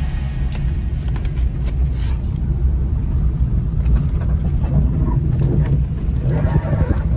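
Steady low rumble of a car's engine and road noise heard inside the cabin while driving, with a few light clicks.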